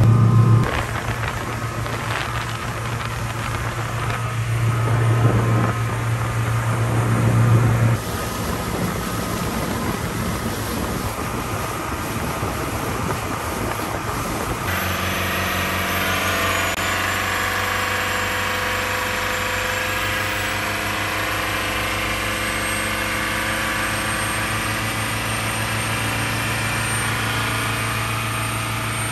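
Inboard diesel engine of a Yanmar FX22Z boat running under way, its hum swelling twice in the first few seconds. From about halfway it runs steadily at speed under the rush of water and spray along the hull.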